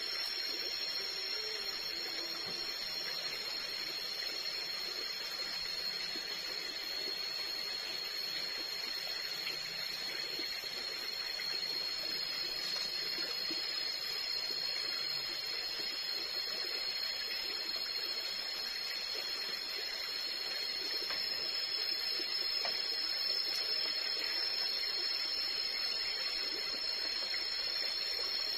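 Steady tropical forest ambience: insects droning at a constant high pitch over an even rushing hiss, unchanging throughout.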